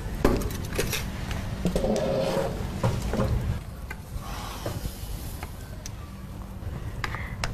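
A few light knocks and a scrape as a plate and a glass are set down on a table and a chair is pulled out, over a steady low background hum.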